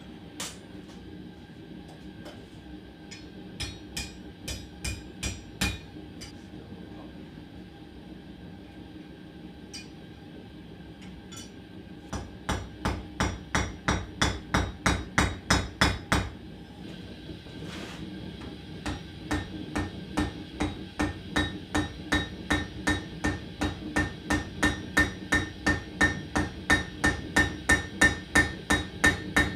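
Hammer blows peening a hot rivet to join the two halves of a pair of blacksmith's tongs. A few scattered blows come first, then steady runs of quick strikes, about three a second, with a short pause between runs; the strikes grow louder toward the end. A faint steady hum runs underneath.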